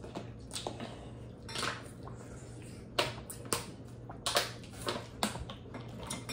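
Crab leg shells being cracked and snapped apart by hand to get the meat out: about half a dozen sharp, irregular cracks, most of them in the second half.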